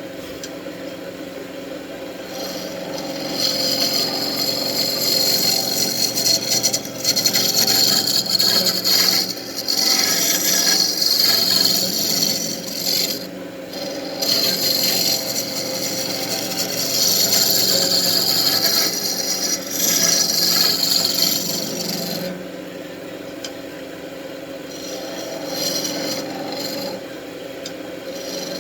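Wood lathe spinning a wand blank while a turning tool cuts it: a hissing, rasping scrape of steel on wood that swells and drops as the tool is pressed in and eased off, over the steady hum of the lathe motor.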